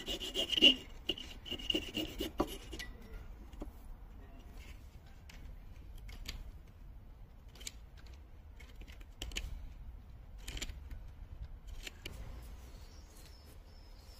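A flat file drawn in quick strokes across a steel axe bit to sharpen its edge, with a high squealing ring, stopping about three seconds in. After that come only a few faint, single scrapes, each more than a second apart.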